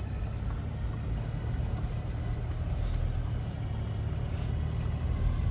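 Steady low rumble of a third-generation Toyota 4Runner's engine and tyres, heard from inside the cabin while driving.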